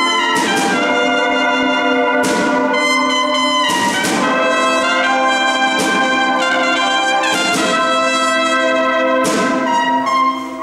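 A Spanish Holy Week brass-and-drum band (agrupación musical) playing a march: trumpets and trombones hold full, sustained chords, punctuated by sharp percussion accents about every two seconds. The sound briefly dips just before the end.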